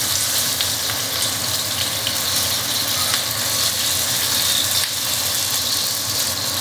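Raw steak sizzling steadily as it starts to sear in a hot frying pan.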